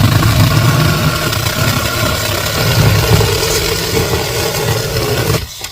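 Small budget chainsaw cutting through a thicker branch, running steadily under load, then stopping suddenly near the end.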